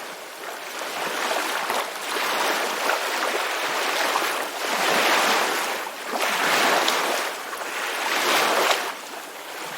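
Ocean surf: waves washing in one after another, the rush swelling and ebbing about five times.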